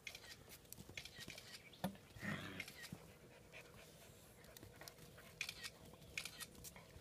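German Shepherd dog panting in quick, short breaths, with a louder sound about two seconds in.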